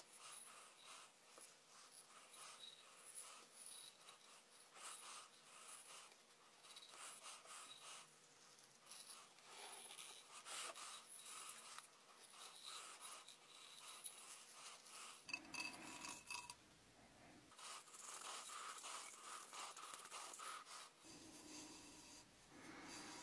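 Thin tape being peeled off the surface of an unfired clay cup: a faint, continuous scratchy rubbing made of many tiny ticks, with a few low handling bumps in the second half.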